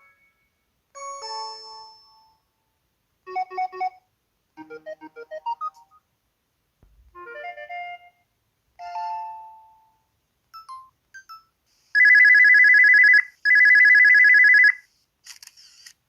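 LG Cyon KH1200 mobile phone's built-in sound effects played one after another: short electronic chimes, beeps and little jingles with silent gaps between them. Near the end come two loud, pulsing buzzer tones of about a second each.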